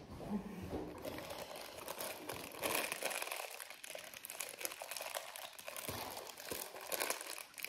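Chewing a crunchy chocolate-coated snack bar up close to the microphone, a crisp crackling broken by many small clicks.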